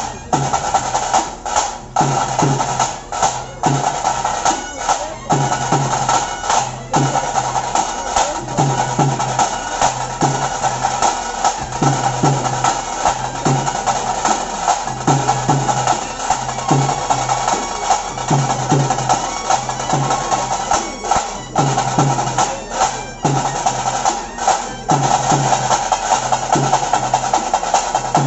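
Bhuta Kola ritual music: a reed pipe sounds a steady, high, droning melody over drums beating a repeating rhythm of low beats and sharp strikes.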